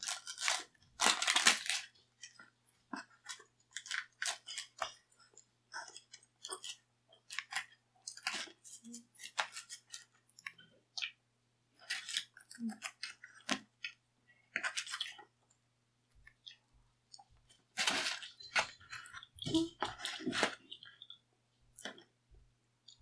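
Close-miked eating sounds: thin-crust pizza being chewed, picked at and pulled apart by hand, with short irregular crackles and clicks, loudest near the start and again about eighteen seconds in.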